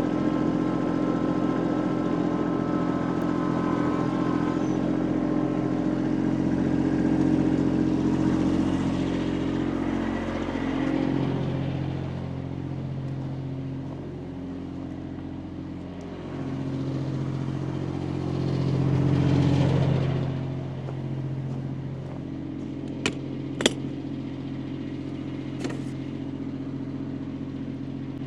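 An engine running steadily, swelling and easing a few times, with a few sharp knocks or clicks near the end.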